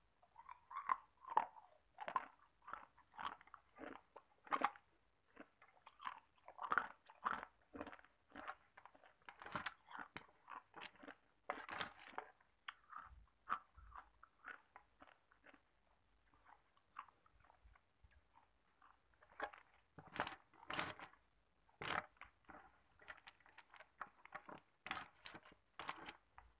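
Hard ice cubes made of tap water being bitten and chewed: a quick, irregular run of sharp crunches that thins out for a few seconds in the middle, then picks up again with loud crunches.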